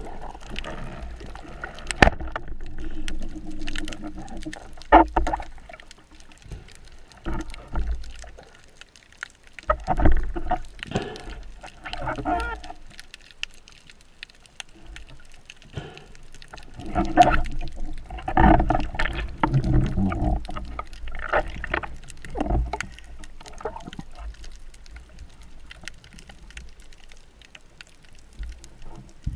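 Muffled underwater noise picked up by an action camera in a waterproof housing during a breath-hold spearfishing dive: irregular knocks and rushes of water, with a low droning tone for a couple of seconds about three seconds in.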